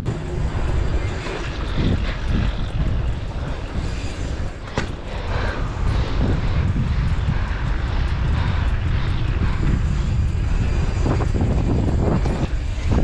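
Wind rushing and buffeting over the camera's microphone as the bicycle rolls along the street, a dense low rumble with no break. A single sharp click sounds about five seconds in.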